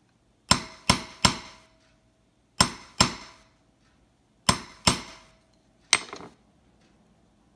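Light hammer taps on a round-faced staking punch, riveting a new balance staff into a watch balance wheel: the first stage of the rivet, spreading the end of the staff over the hub. Eight sharp metallic taps come in groups of three, two, two and one, each with a short ring.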